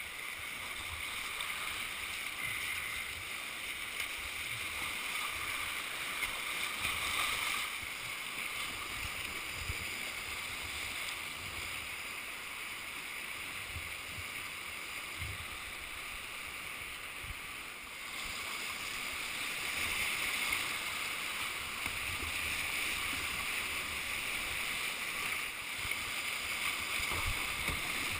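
River water rushing through whitewater riffles, a steady hiss-and-rush heard from a kayaker's helmet camera. It swells louder over the last third as the boat enters rougher water.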